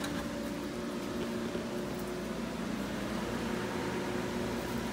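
Pool pump motor running at the equipment pad with a steady hum, circulating water through the salt cell.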